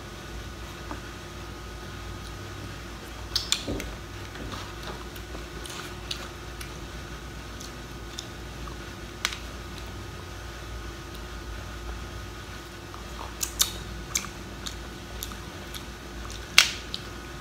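Crab claw shells being cracked open and eaten: a few sharp cracks and snaps, the loudest near the end, with soft chewing in between over a steady faint hum.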